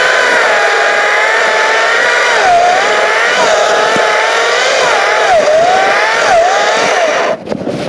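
Makita 18V cordless chainsaw running flat out with a high electric whine, its pitch dropping and recovering several times as the chain cuts into the wood. It stops abruptly about seven seconds in, followed by brief scraping and crackling.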